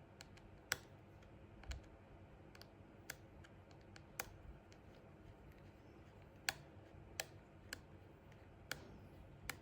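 Light, scattered clicks and taps of a precision screwdriver and tiny screws being handled while an iPhone 6S is taken apart, about ten separate clicks with long gaps between them.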